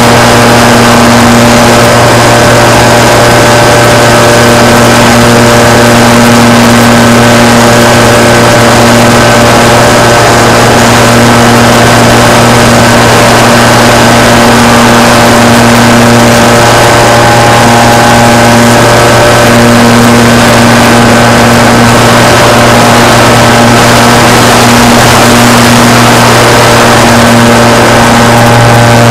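Motor and propeller of a radio-controlled model aircraft, recorded by the camera on board: a loud, steady drone at a constant pitch that swells slightly near the end.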